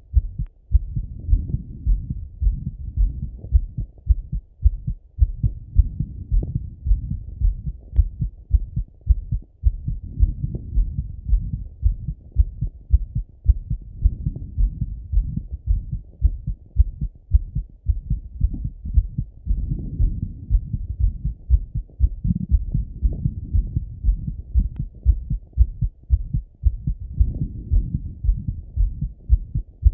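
A man's heartbeat heard through a Littmann stethoscope on his chest: a steady, even rhythm of dull low lub-dub thumps. His heart is beating after a workout set.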